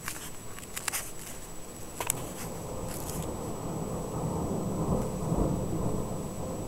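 Thunder: a few sharp crackles in the first three seconds, then a low rumble that swells to its loudest about five seconds in.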